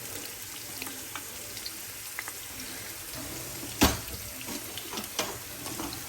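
Chopped onions sizzling in a pot: a steady hiss dotted with small pops. A utensil knocks sharply against the pot about four seconds in, and more lightly about a second later.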